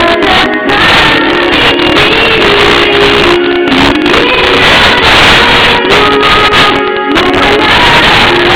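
A woman singing karaoke into a handheld microphone over a loud backing track, her held notes gliding between phrases.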